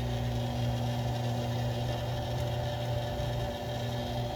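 Reebok TR4 treadmill's electric incline motor running with a steady hum as it folds the treadmill deck up.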